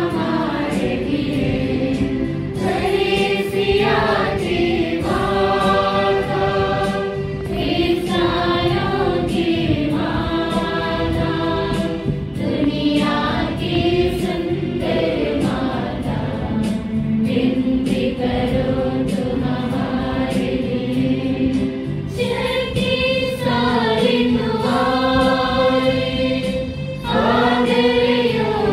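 A group of voices singing a Christian hymn together in long, held notes.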